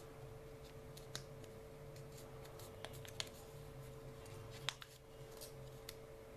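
Sheet of origami paper being folded and creased by hand: faint rustles and several sharp, crisp ticks as the folds are pressed, the loudest about three-quarters of the way in. A steady low hum runs underneath.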